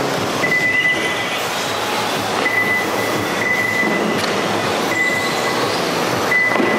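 Radio-controlled rally cars racing on a dirt track: a steady rush of tyres on dirt, with a thin high whine from the passing cars that comes and goes about four times, rising briefly near the start.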